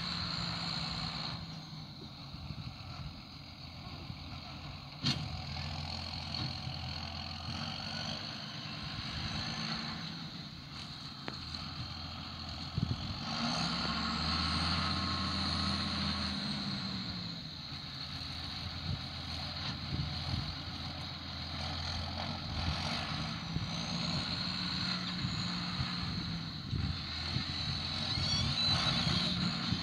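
John Deere loader tractor's diesel engine running as it manoeuvres round hay bales, its pitch rising and falling as the throttle changes, with a sharp knock about five seconds in.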